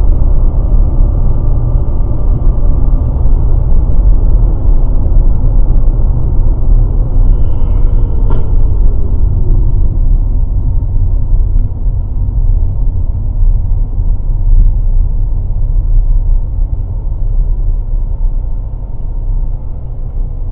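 Low, steady rumble of road and engine noise heard from inside a moving car through a dashcam's microphone, with a faint tone that slowly falls in pitch about a third of the way in.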